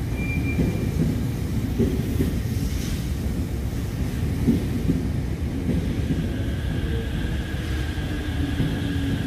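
Tōyō Rapid Railway 2000 series electric commuter train at the platform, a steady low rumble; about halfway through, the whine of its traction motors comes in as it starts to pull away.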